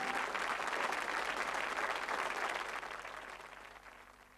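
Studio audience applauding, steadily fading out until it cuts off at the end.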